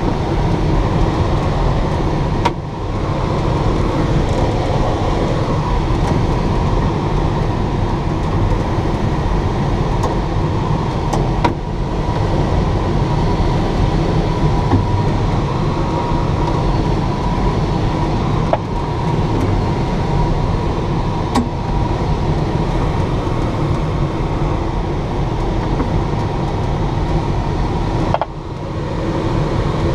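Steady rush of air streaming over a Schleicher K 8 glider's canopy and fuselage in flight, heard from inside the cockpit, with a faint thin steady tone running through it. The noise dips briefly a few times.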